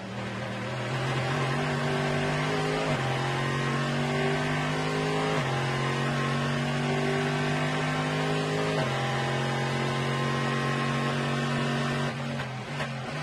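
Corvette C6.R race car's V8 at full throttle, accelerating hard through the gears with sharp upshifts about three, five and nine seconds in, the pitch climbing again after each one. Near the end the driver lifts off and the engine note falls away.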